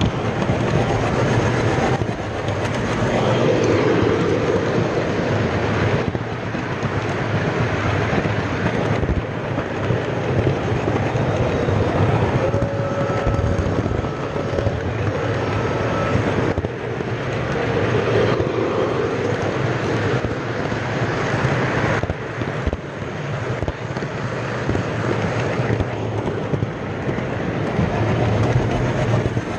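O scale model train running on its track, heard from a camera riding on the front: a steady rolling rumble of wheels on rails, rising a little around four seconds in and again near the middle.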